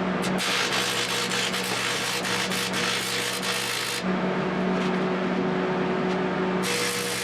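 Metalworking in a home forge shop: a steady electrical hum runs under scratchy, crackling noise. The crackling lasts about four seconds, breaks off, then starts again near the end.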